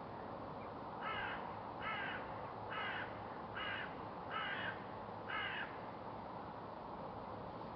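A bird calling six times in an even series, a little under a second apart, over a steady background hiss.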